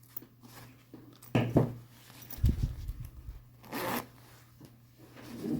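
Jacket zipper worked with a new hairpin-loop zipper pull: a few short scraping zips, about a second apart, over a low steady hum.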